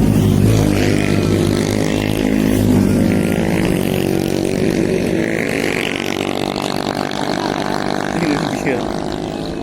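A vehicle engine running steadily on the move, mixed with wind noise.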